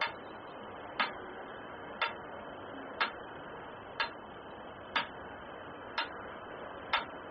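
Metronome ticking once a second, eight even clicks, beating out a heartbeat pace that counts a slow eight-beat breath.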